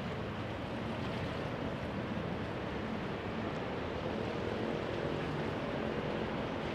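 Steady riverside ambience: the low hum of a boat engine on the river with water washing, the engine tone growing a little stronger from about four seconds in.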